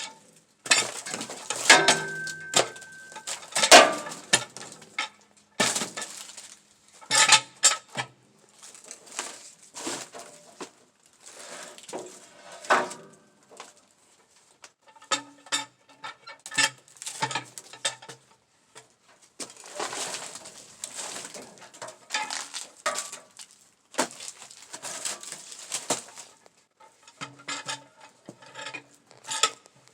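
Irregular metallic clanks, knocks and clatters, many in quick uneven runs with short pauses: metal parts and tools being handled on a sawmill.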